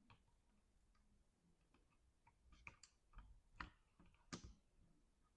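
Faint, scattered clicks and ticks of small parts being handled and fitted inside a Beeman BP.50 launcher, with a cluster of them in the second half and the sharpest near the end.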